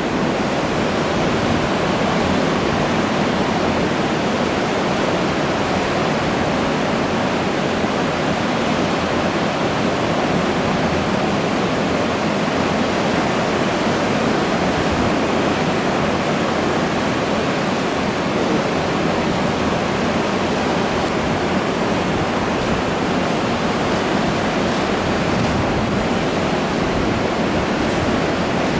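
Ocean surf breaking along the beach, heard as a steady, even rush of water.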